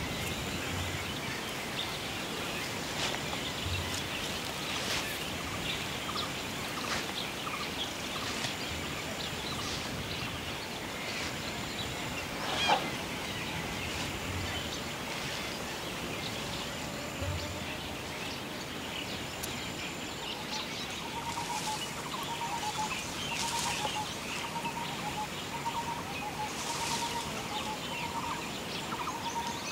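Outdoor ambience of many birds chirping and calling, with a short high note repeating every couple of seconds and a fast run of pulsed calls joining in over the last third. A single sharp click comes a little before halfway, and there are a few soft low thuds.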